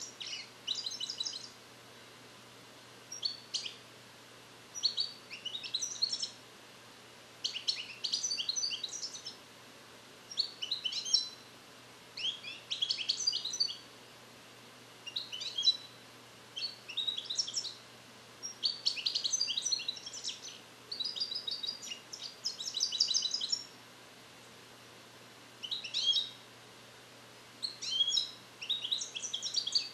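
European goldfinch, a year-old captive-bred male, singing in short bursts of rapid high notes with brief pauses between them. He is song-trained to the Neapolitan 'passate' and is beginning to repeat them, but the song is not yet complete.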